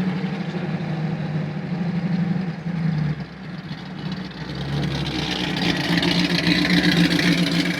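1965 Ford Mustang's engine running through its Black Widow exhaust while the car is driven. It eases off about three seconds in, then pulls again and grows louder toward the end.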